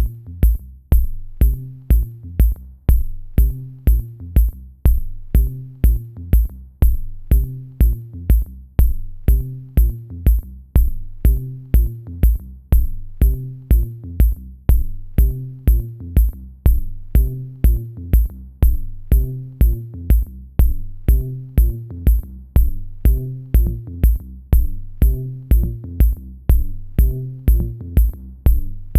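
Electronic music with a steady drum-machine kick beat, about two beats a second, over sharp high ticks and a repeating synth line.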